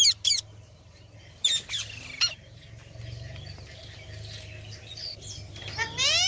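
Rose-ringed parakeets (Indian ringnecks) calling with short shrill squawks: a quick cluster in the first couple of seconds, then a louder rising call near the end.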